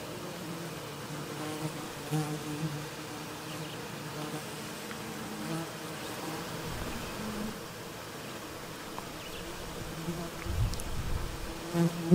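A flying insect buzzing close to the microphone, its pitch wavering as it comes and goes. Near the end there is a low rumble, then a sharp knock.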